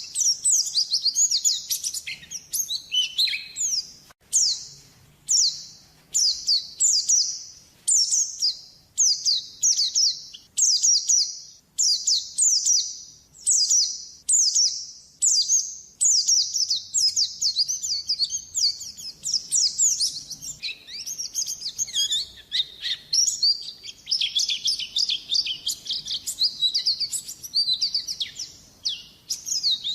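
White-eye (pleci) song: rapid, high-pitched twittering. For the first half it comes in short phrases about once a second, then runs on as a denser, nearly unbroken warble.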